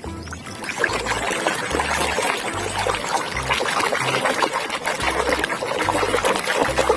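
Water pouring and splashing over a plastic toy as the mud is rinsed off, a continuous trickling splash.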